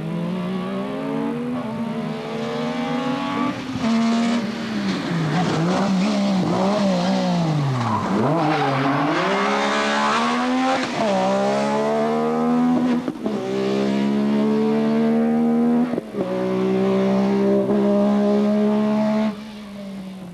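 Metro 6R4 rally car's V6 engine driven hard: revs climb and break at each gear change, sweep down and back up in the middle, then hold high and steady before dropping away sharply near the end.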